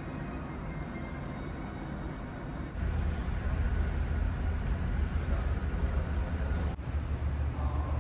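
Steady low rumble and hiss of a ferry under way, the ship's engines and ventilation heard inside its passenger deck, louder from about three seconds in.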